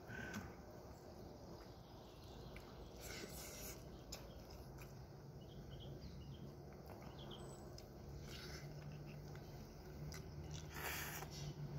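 Faint sounds of eating crab by hand: chewing, with soft clicks and rustles from picking at the cooked crab shells and rice. A faint low steady hum comes in about halfway through.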